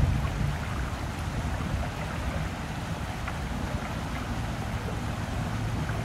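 Steady outdoor noise on open water: a low rumble of wind on the microphone with a hiss above it, and a faint low hum underneath.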